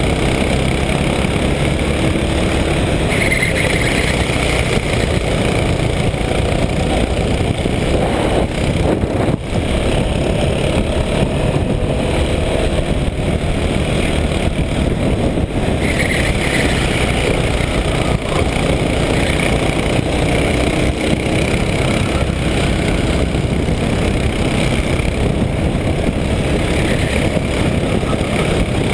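Go-kart engine running flat out in a race, heard from a camera mounted on the kart itself. The sound is loud and steady throughout, a dense mix of engine and rushing noise.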